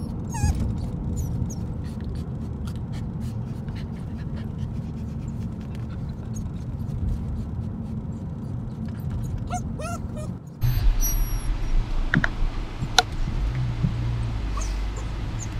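German Shepherd puppy whining and whimpering in short high-pitched cries, over the steady low rumble of a car on the road. The background changes abruptly about ten seconds in.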